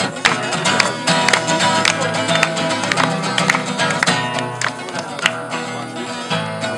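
Two acoustic guitars strummed in a steady rhythm, playing a song.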